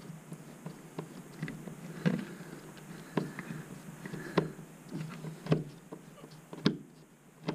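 Hand screwdriver tightening the bottom screw of a wall-mounted plastic cable box, with a sharp click roughly once a second as the handle is turned and regripped.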